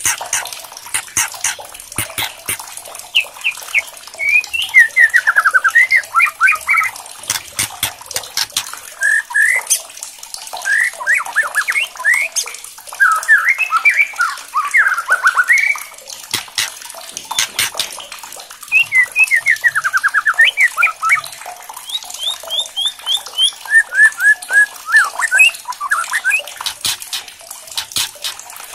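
White-rumped shama singing in quick phrases of repeated sliding whistled notes, broken by many sharp, dry clicks: the loud crackling 'kretekan' calls of an agitated murai batu.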